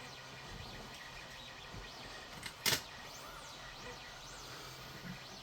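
A single sharp click about two and a half seconds in, over a quiet background with faint high chirps.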